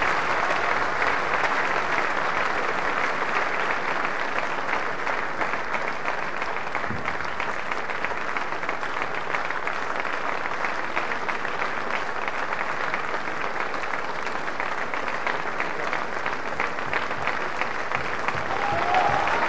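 Opera-house audience applauding, a steady dense ovation of many hands clapping.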